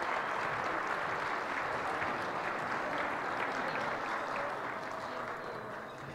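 Audience applauding steadily, the applause dying down near the end.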